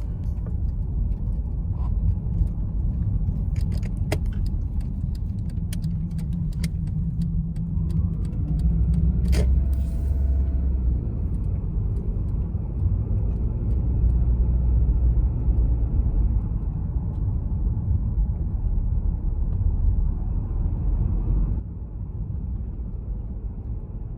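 A Toyota Alphard (20 series) driving, with a steady low rumble of road and tyre noise. A few sharp clicks come in the first ten seconds, and the sound gets suddenly quieter near the end.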